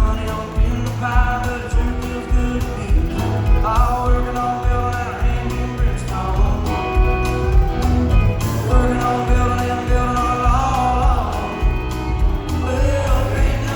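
Country song played by a band, with a man singing lead over a steady beat.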